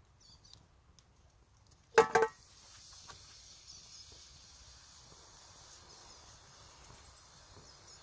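A metal lid clanks and rings briefly about two seconds in as it is lifted off a frying pan over a campfire. A faint, steady hiss follows.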